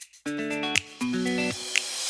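Background music: guitar-like plucked chords played in short phrases with brief pauses.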